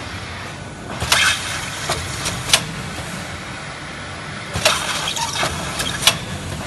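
Film-wrapping packaging machine running, its conveyors giving a steady hum. The head that seals and cuts the film cycles twice, about three and a half seconds apart; each cycle is a short hiss followed by a sharp clack.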